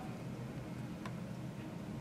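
Faint steady low hum in a car cabin, with a single soft click about a second in as a steering-wheel control button is pressed to page the instrument-cluster display.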